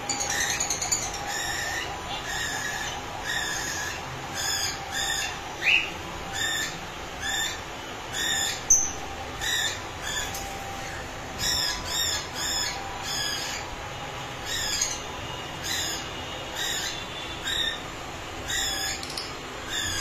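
Green opaline lovebirds calling in short, shrill chirps, about one a second.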